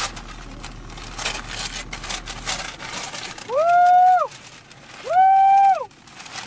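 Gift-wrapping paper and a plastic bag crinkling and rustling as a present is torn open. After about three and a half seconds come two louder held high notes, each about a second long, sliding up into the note and down out of it.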